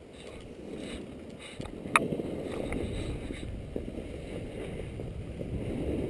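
Wind rushing over a helmet-mounted camera and the scrape of sliding on snow, getting louder as speed picks up, with one sharp click about two seconds in.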